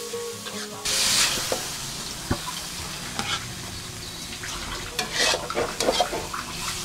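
Sweet potato stems sizzling in a wok while a metal spatula stirs and scrapes them, the sizzle getting loud about a second in. Near the end come clinks and scrapes of the spatula against the wok and plate as the stems are dished out.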